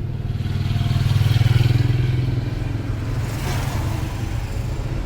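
A motor running with a low, steady hum that grows louder about a second in and eases off after a couple of seconds.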